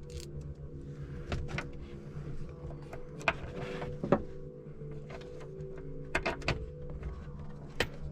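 Scattered sharp clicks and knocks of a metal brake-line bulkhead fitting and its washer being handled and worked through a hole in the car's body, over a steady low hum.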